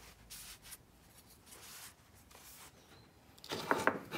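A cloth rag rubbing in a few short strokes, then a louder scrape and clink as a metal paint can is handled on the bench near the end.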